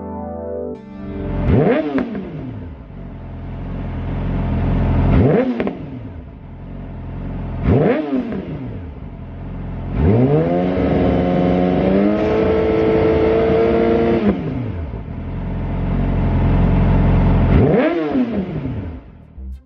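Yamaha YZF R6's 600 cc inline-four revved at standstill through a Lextek full exhaust system with SP8C silencer. Two sharp throttle blips and two slower climbs cut off suddenly at the top, and in the middle a rev is held high for about four seconds. Between them the engine drops back to idle.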